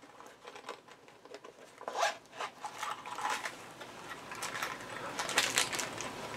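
Gift packaging being torn and unwrapped by hand: a string of rustles, rips and crinkles that gets busier toward the end.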